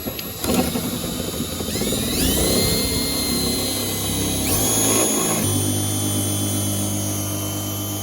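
Power drill driving a step drill bit into the car's hood panel, its motor whine rising twice as it speeds up, then running steadily.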